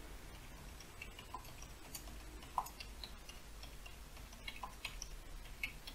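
Faint, irregular clicks of keys being typed on a computer keyboard.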